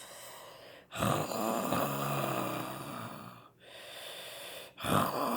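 A woman imitating a bear's snoring with her voice: several drawn-out snores in a row, with short breaks between them.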